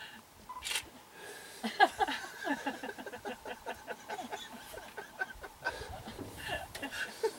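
A chorus of wild animal calls: many short, falling calls, several a second, over a faint steady high tone. There is a sharp click about three-quarters of a second in.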